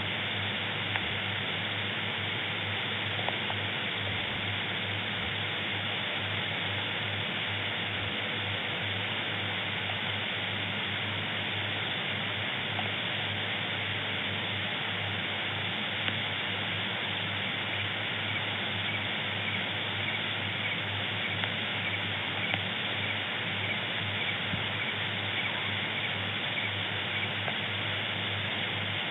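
Steady hiss of an outdoor wildlife camera's microphone at night, with a low steady electrical hum underneath and a few faint ticks.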